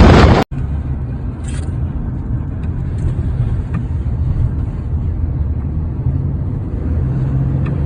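A loud gust of wind noise is cut off about half a second in, followed by the steady low rumble of a car running.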